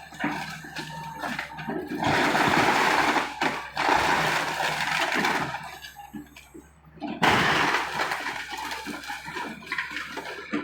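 House debris breaking and falling as a Case 888 excavator tears the building down: two long stretches of rushing, crackling noise, about two and seven seconds in. A steady low engine hum runs beneath.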